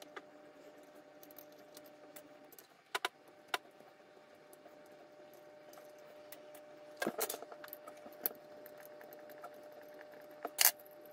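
An Allen key and small screws clicking and tapping against the plastic extruder housing of a Bambu Lab A1 Mini as it is unscrewed and taken apart. The sounds come as scattered sharp clicks, the loudest near the end, over a faint steady hum.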